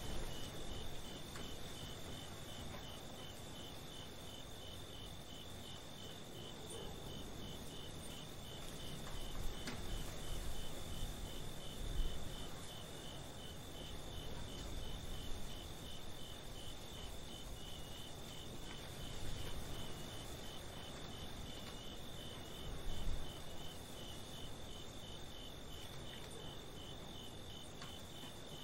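Crickets chirping steadily at night: a high continuous trill with a regular pulse about twice a second, over a low background rumble that swells a few times.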